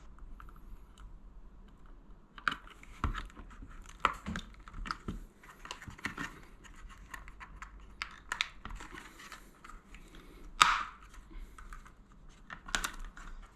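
Small plastic clicks and scrapes of hands fitting a Kidde Firex mains smoke alarm's wiring-harness plug into the back of the alarm, irregular and close up, with one louder click-scrape about ten and a half seconds in.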